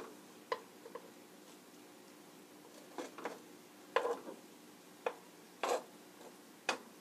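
Light, irregular clicks and taps of a utensil against a nonstick frying pan and a stainless steel mixing bowl, about eight in all, as egg-battered zucchini slices are laid into the pan one at a time.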